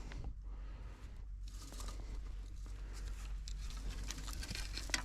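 Crinkling and rustling with many small clicks as bait and fish oil are handled in preparing a smelt deadbait. It is quieter for the first second or so, then busier from about a second and a half in.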